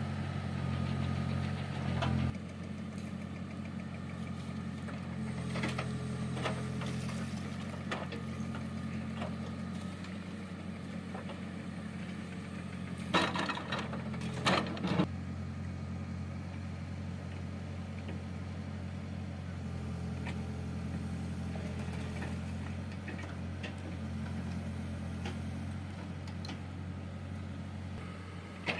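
Diesel engine of a backhoe loader running steadily, its note dropping a little after two seconds in. A few sharp knocks come about halfway through.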